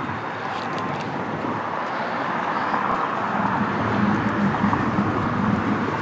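A car running nearby, a steady engine-and-tyre noise that grows slowly louder toward the middle and then eases off.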